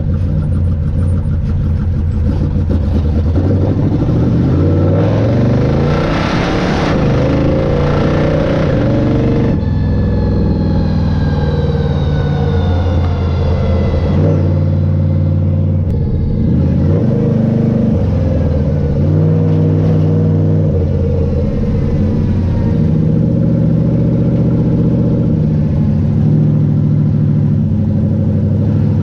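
1968 Dodge Charger stock car's engine and exhaust while driving: the engine note climbs and drops in pitch a few times in the first half, loudest about six to nine seconds in, then settles into a steady cruise.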